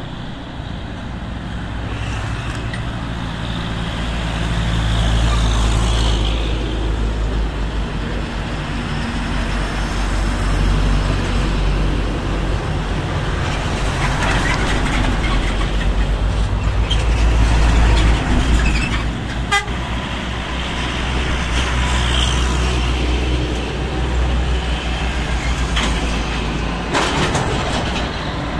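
Heavy diesel cargo trucks climbing a bridge incline one after another, their engines labouring under load; the low rumble swells several times as trucks pass close by. A vehicle horn toots among them.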